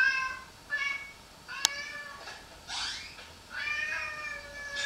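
Cat meowing: a series of wavering meows, several of them long and drawn out, with a sharp click about a second and a half in.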